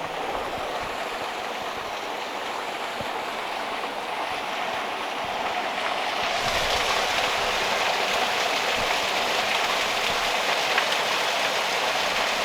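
Small mountain stream splashing and rushing over and under boulders in a steady stream of water noise that grows louder and hissier about halfway through.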